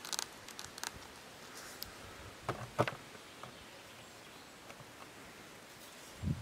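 Scattered short clicks and knocks from someone handling things, loudest nearly three seconds in, over a faint steady outdoor background noise.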